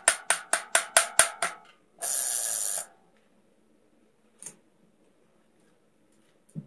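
Bicycle rear hub's freewheel pawls ratcheting: a run of sharp clicks, about five a second, slowing and stopping about a second and a half in. A short even hiss follows for just under a second, then one faint click.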